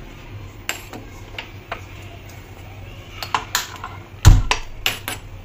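Scattered clicks and light clatter of kitchen things being handled at a gas stove and steel pot, with one heavy thump about four seconds in.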